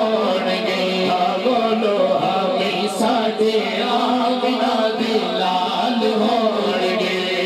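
Male voice singing a naat, an Urdu/Punjabi devotional song, into a microphone with no breaks and a bending, ornamented melody, over a steady low hum.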